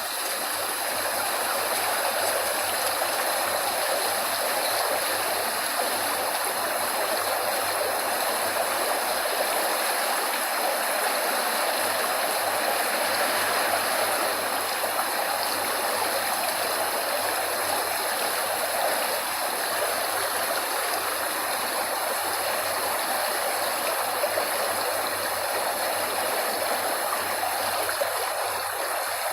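Steady rushing of flowing water, an even unbroken hiss of running water like a stream or small waterfall.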